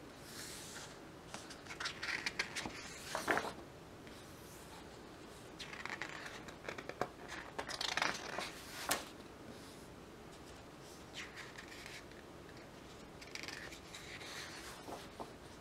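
Pages of a large, heavy photo book being turned by hand: several bursts of paper rustling and sliding, with quiet stretches between.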